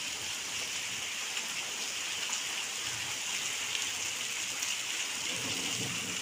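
Very heavy rain mixed with hail pouring onto a flooded concrete courtyard: a steady, even hiss of drops and hailstones hitting standing water.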